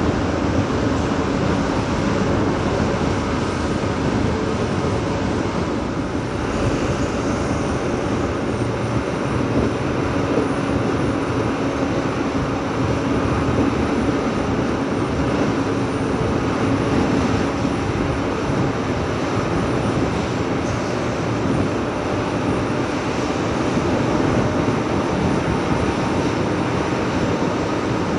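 Heavy diesel earthmoving machinery working, a loud, steady engine drone without a break.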